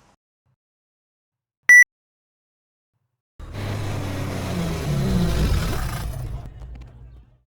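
A short, loud electronic beep, then a car engine running at low speed as the car parks, its pitch rising and falling briefly before the sound fades out near the end.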